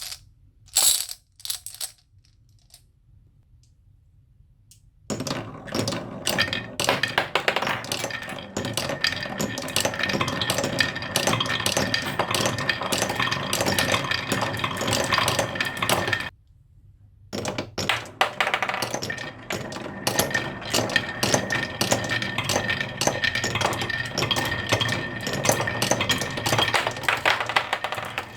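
Many marbles clattering and rolling down a wooden marble run, a dense stream of small clicks and knocks. A few single clicks come first, then two long runs of continuous clatter with a short break between them.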